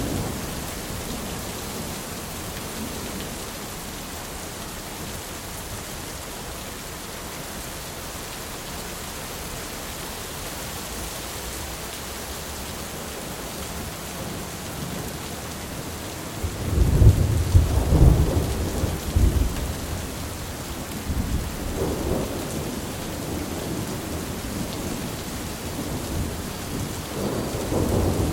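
Steady rain falling during a thunderstorm. About two-thirds of the way in, a loud roll of thunder rumbles deep and low for a few seconds, followed by fainter rolls near the end.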